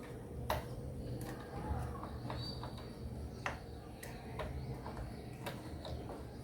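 Scattered light plastic clicks and taps, about half a dozen spread irregularly, as a 2 GB RAM module is handled and fitted into a memory slot inside a Lenovo ThinkCentre M58P desktop, over a faint low hum.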